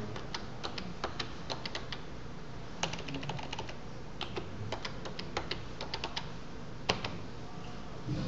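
Computer keyboard typing a web search: irregular keystroke clicks with short pauses between runs. One keystroke about seven seconds in is louder than the rest.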